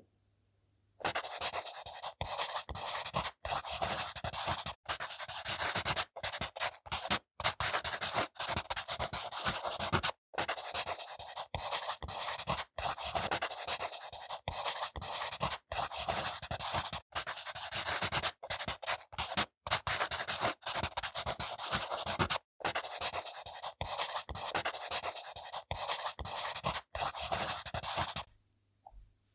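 Fast, dense scratching and rubbing of a makeup tool worked over the peel of a grapefruit. It starts abruptly about a second in and stops near the end, with many brief breaks between strokes.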